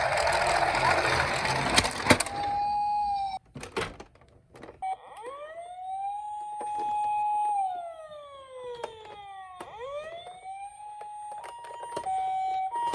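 Emergency-vehicle siren sounds. For the first two seconds loud noise runs with a siren tone under it, ending in a sharp click. After a pause a siren wails, rising, holding, sliding slowly down and rising again. Near the end a two-tone hi-lo siren, the ambulance 'pii-poo', takes over.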